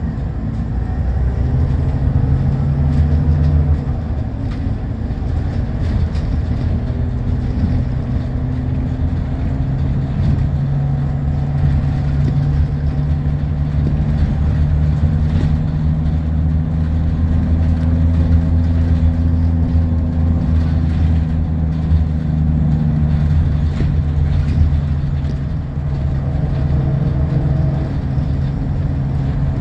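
Scania L94UB bus's rear-mounted diesel engine heard from inside the cabin while driving, with road noise. The low engine note holds steady for long stretches and steps in pitch a few times as the ZF Ecomat automatic gearbox shifts.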